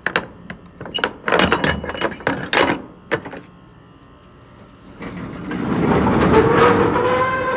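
Box truck rear door latch clanking and rattling as it is worked open by hand, then the door rolling up: a rumble with a slowly rising whine for about two and a half seconds.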